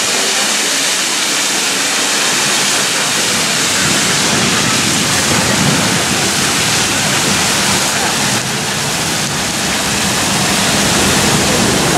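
Water jets of a large public fountain splashing into its basin: a steady, even hiss.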